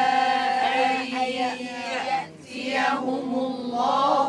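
Several voices reciting Quran verses together in a slow, chanted unison, with long held notes and a short break about halfway through.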